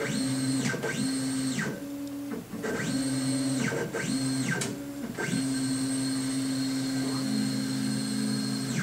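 Stainless OX CNC router's stepper motors whining as the machine jogs its axes. Each move ramps up in pitch, holds, then ramps back down: five short moves, then one longer move of about three and a half seconds near the end.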